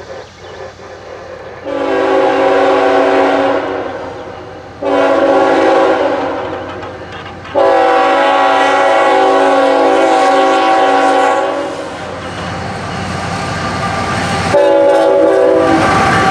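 CSX diesel freight locomotive's air horn, a chord of several tones, sounding four long blasts as the train approaches; the third blast is the longest. Between the last two blasts the rumble of the locomotives and wheels grows as they come past close by.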